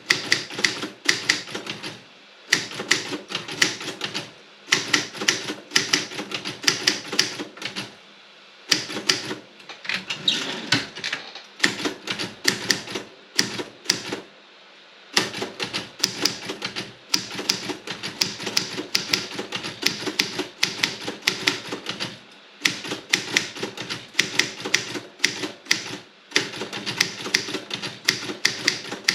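Robotron 24 typewriter being typed on: quick runs of sharp keystrokes, broken by short pauses every few seconds.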